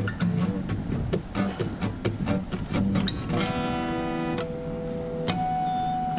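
Background guitar music: a run of quick plucked notes, then held chords from about halfway.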